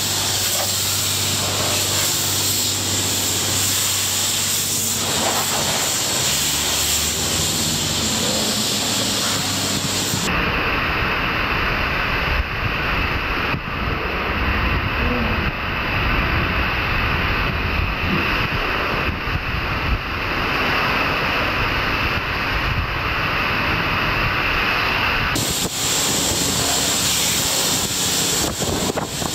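High-pressure spray from a car-wash wand hissing steadily against a car's body and windows, with a low hum underneath. For a long stretch in the middle the sound turns duller and deeper with its high end gone, then the full hiss returns near the end.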